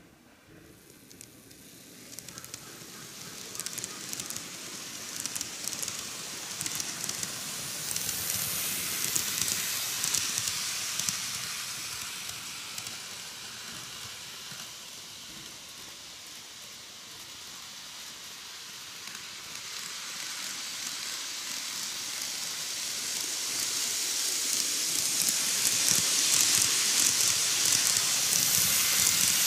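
A KATO N-gauge model of a 185 series 200 electric train running on ballasted plastic-roadbed track: the hissing rumble of its motor and wheels on the rails. It starts from near silence about a second in, swells as the train draws away past the camera, sinks while it runs round the far side of the oval, and swells again to its loudest near the end as it passes close by once more.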